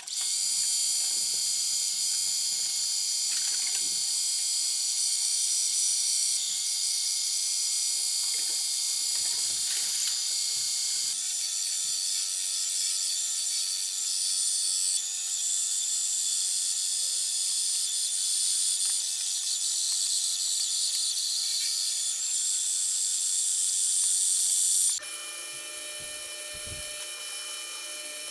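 An electric power tool running steadily with a high motor whine, shifting slightly a few times and dropping to a quieter running sound near the end.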